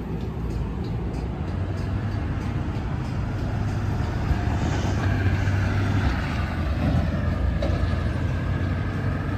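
Road traffic on a busy street: steady engine and tyre noise from passing vehicles, with a whine that falls slightly in pitch over the second half.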